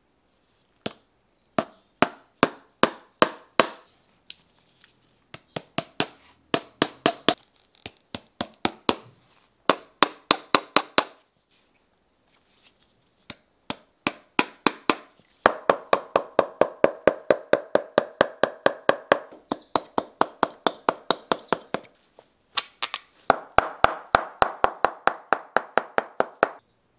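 Shoemaker's hammer tapping tacks through the toe of a boot upper into the last while lasting it, in quick runs of light, sharp strikes about three to four a second, with short pauses between runs.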